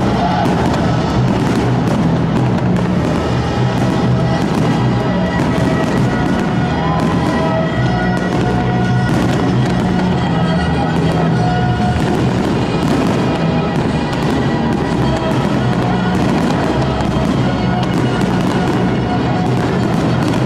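A continuous barrage of fireworks going off, with dense crackling and bangs and no pause, while music plays underneath.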